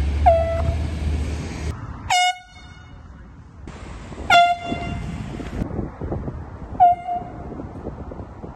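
Air horn sounded in four short blasts, each well under a second. Each is a single high tone that slides down quickly as it starts and then holds steady.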